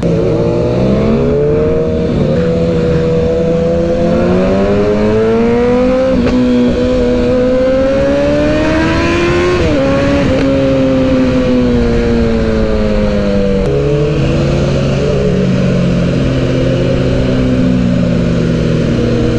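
Suzuki Hayabusa's inline-four engine under way, its pitch climbing over the first several seconds, dipping briefly, climbing again, then falling steadily with a step down about fourteen seconds in. Wind rushes over the microphone throughout.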